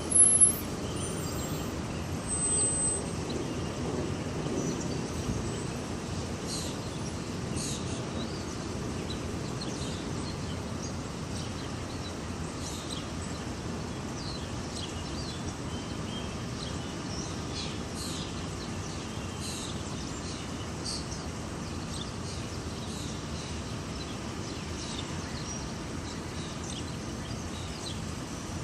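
City park ambience: a steady low rumble of distant traffic, with small birds chirping on and off. A brief loud sound right at the start, and a smaller one about two to three seconds in.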